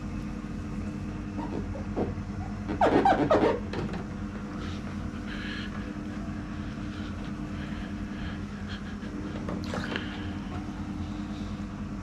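Steady low hum of the hot tub's running equipment while water from a garden hose runs in to top it up. About three seconds in comes a brief, louder rubbing sound, with a fainter one near ten seconds.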